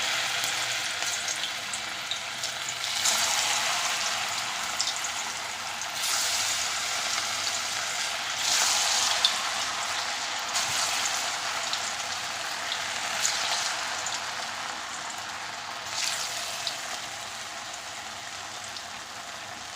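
Hand-rolled pieces of beaten-rice and vegetable dough deep-frying in a pan of hot oil: a steady sizzle that swells louder several times and slowly eases toward the end.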